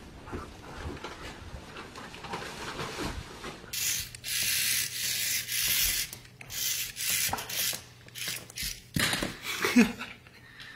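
Rough scratching and scraping noises that come in irregular bursts, louder from about a third of the way in.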